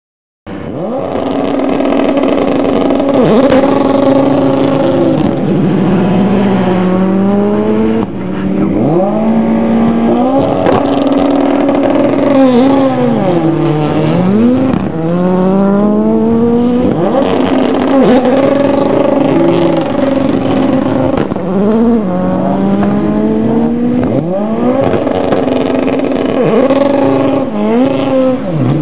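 FIA Formula Two single-seaters, each with a turbocharged 1.8-litre Audi four-cylinder, passing one after another at racing speed. Each engine note swoops down in pitch as a car goes by, with stepped rises as the drivers shift gear, the cars overlapping almost without a break. The sound cuts in suddenly about half a second in.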